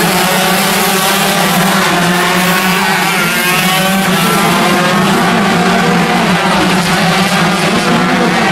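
Several 125cc two-stroke shifter kart engines racing at high revs, their pitch rising and falling as the drivers shift and brake.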